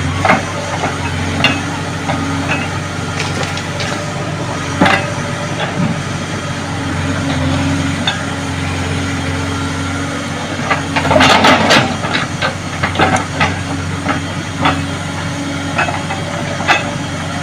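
JCB excavator's diesel engine running steadily while the machine digs, with scattered metallic knocks and a loud burst of clattering about eleven seconds in.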